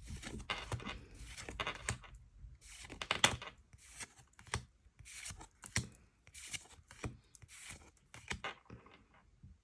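Irregular rustling, tearing and scraping of paper and cardboard: a run of short swishes with a few sharp clicks among them, thinning out towards the end.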